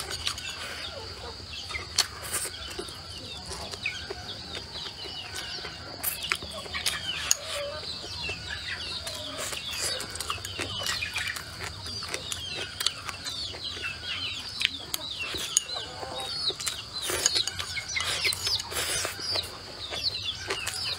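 Chickens clucking and peeping, many short high calls, over a steady high-pitched hum. Occasional sharp clicks and chewing come from eating with chopsticks from a bowl.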